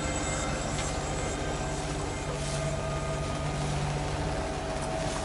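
Sailing yacht's engine running steadily under way, a constant hum with a noisy wash over it.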